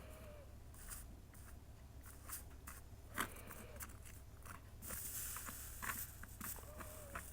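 Soldering iron tinning the stripped leads of a power cord: faint crackling and sizzling of flux, with scattered small clicks, and a short stretch of hiss a little after the middle.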